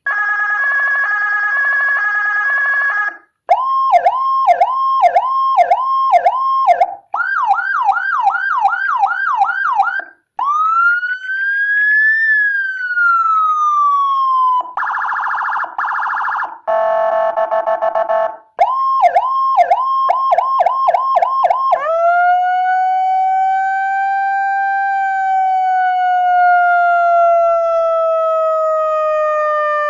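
Electronic siren module with Whelen HHS-style tones, switched through one pattern after another. It plays a stepping two-tone warble, then fast repeated chirping yelps, a single wail rising and falling, harsh pulsing blasts, more chirps, and finally a long slow wail that rises and then gradually falls.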